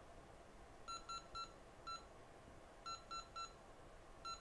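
Faint, short electronic beeps from a rework station's buttons as its temperature is set. There is a quick run of three about a second in, a single one, three more near three seconds, and another just at the end.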